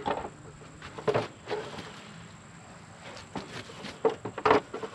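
Irregular light knocks and clicks of a skid steer's belt cover being pushed into place and handled with a screwdriver, the loudest knock near the end.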